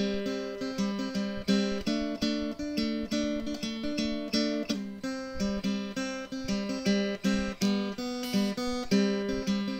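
Background music: acoustic guitar strumming and picking a steady pattern of chords.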